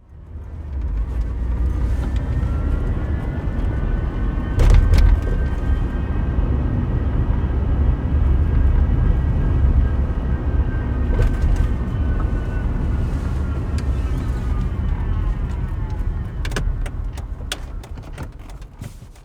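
2004 Volvo S60 2.4 with five-speed manual driving, a steady low road-and-engine rumble under a whine of several tones that climbs a little, then drops in pitch as the noise dies away near the end. The whine comes only while driving, never at idle or when the engine is revved, and its cause is unknown. A few sharp knocks cut through, the loudest about five seconds in, and a cluster of clicks near the end.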